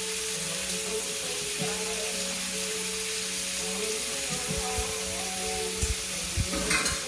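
Seasoned chicken pieces frying in hot olive oil in a pot: a steady sizzle under background music with long held notes. A few soft knocks come in the second half, with a sharper one near the end.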